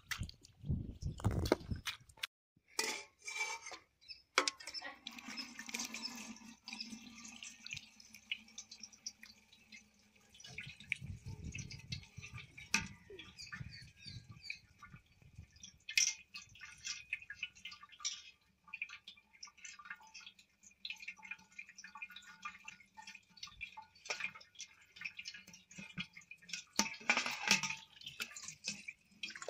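Wet watermelon flesh being mashed and squeezed in a steel pot, with a wooden stick and by hand: irregular squelching and splashing, with occasional clinks of steel vessels.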